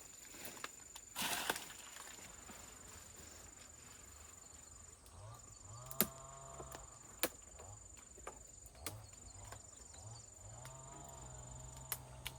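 A steady high insect trill with short breaks, likely a cricket or cicada, with scattered sharp clicks and a brief rustle about a second in. A low wavering hum comes in twice, near the middle and toward the end.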